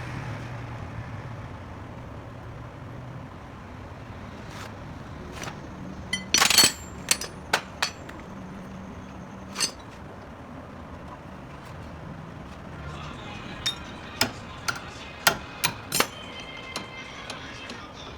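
Hand tools clinking and knocking against metal car parts in irregular sharp strikes. A loud cluster comes about six to eight seconds in, and a run of clinks with a short metallic ring comes near the end.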